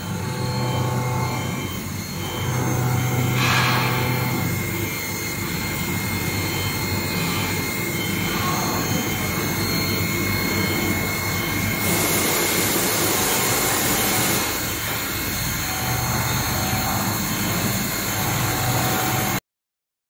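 Water-type mould temperature controller running, its circulation pump motor giving a steady hum with a thin whine over it. A louder rushing hiss comes in for about two seconds midway, and the sound cuts off suddenly near the end.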